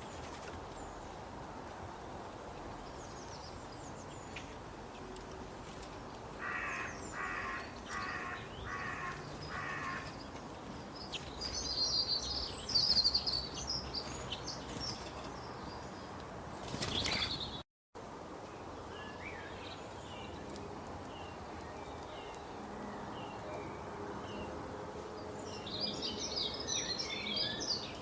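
Wild birds calling over a steady outdoor hiss: one bird gives a run of five harsh calls in a row, and songbirds twitter in high bursts, loudest a few seconds after the harsh calls and again near the end. The sound cuts out for a moment about two-thirds of the way through.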